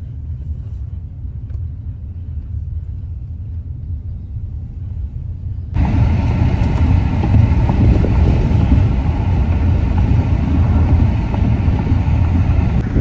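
Car cabin noise while riding: a steady low rumble of engine and tyres on the road. About six seconds in it jumps louder, with added road and wind hiss.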